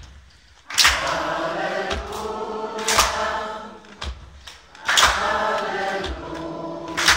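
Live music: a man singing into a microphone over an instrumental accompaniment. Loud accented chords land about every two seconds, over a low thump about once a second.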